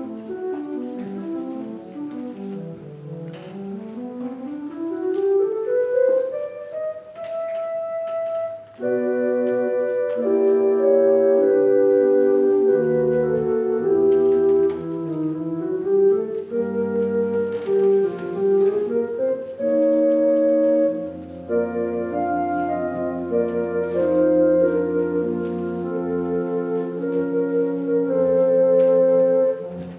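Organ music playing slow, held chords. In the first several seconds a single gliding tone sweeps down and back up, and deep sustained bass notes come in about two-thirds of the way through.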